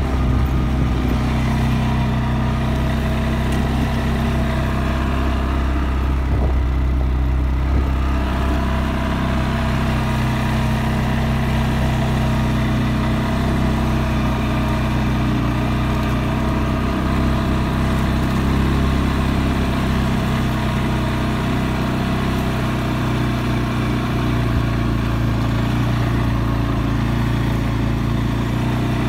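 CFMOTO CForce 600 ATV's single-cylinder, liquid-cooled engine running steadily while the quad is ridden, its note holding level with no hard revving.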